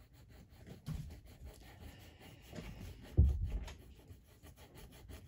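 Green crayon colouring back and forth on paper laid over a book: a rapid, scratchy rubbing. A dull low thump comes about three seconds in.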